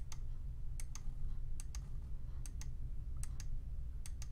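Computer mouse button clicking: about six quick press-and-release pairs, roughly one pair every 0.8 s, each placing a point of a stitch line along the edge of a shape on screen. A faint low steady hum lies underneath.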